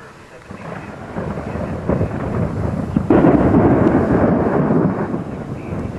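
Thunder from a severe thunderstorm: a rolling rumble that builds, breaks into its loudest peal about three seconds in, and fades toward the end.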